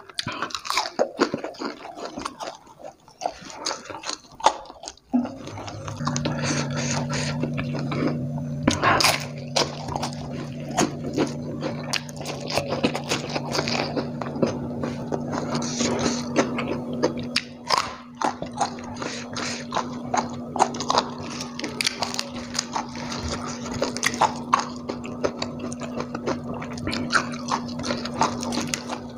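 Close mukbang eating sounds: wet chewing and crunching of crispy fried egg with sambal and raw vegetables, with many small mouth clicks and smacks. A steady low hum starts about five seconds in and carries on underneath.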